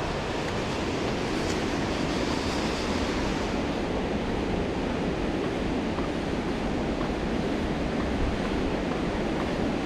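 Steady rush of water from a waterfall, an even noise without a break.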